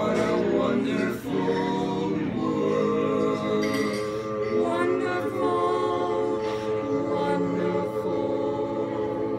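Four-man a cappella vocal quartet singing in close harmony, moving through a few chords and then holding long sustained chords at the close of the song.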